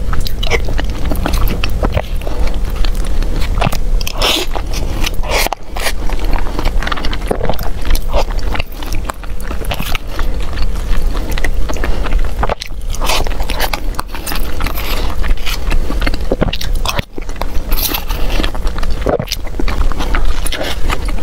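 Close-miked eating: a person chewing and biting mouthfuls of rice, with many small wet clicks and crunches, and a metal spoon scraping a plastic takeaway container.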